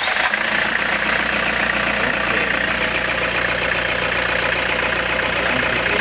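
Toyota HiAce van engine idling steadily just after a fresh start, its no-crank fault cured by a bypass wire to the starter relay.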